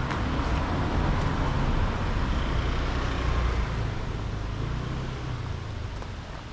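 A road vehicle passing close by: a low engine and tyre rumble that swells and then fades away.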